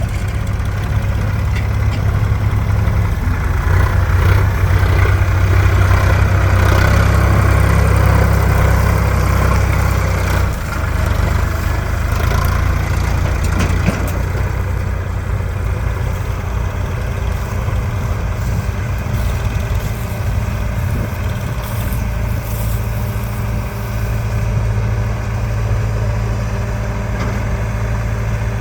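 Heavy diesel engines of a backhoe loader and tractor running. They work harder for several seconds near the start, then settle to a steady run.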